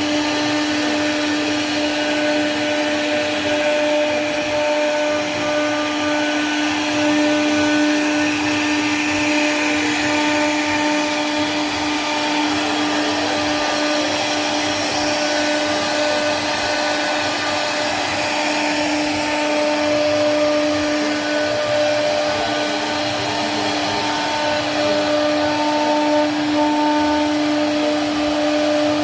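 CNC router spindle running steadily while its bit carves relief patterns into a solid wood door panel: a steady motor whine over the constant hiss of the cutter through the wood.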